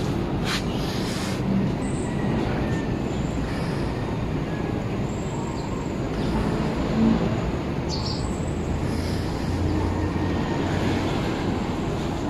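Steady low rumbling background noise, with a few faint brief high chirps over it.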